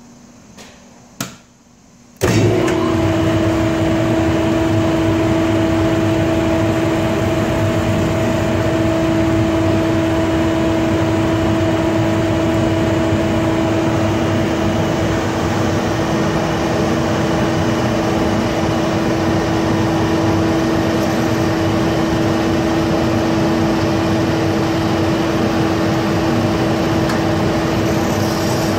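RBS 3015 heat shrink tunnel switched on about two seconds in: its blower and roller conveyor start at once and run with a loud, steady hum over a broad rushing noise.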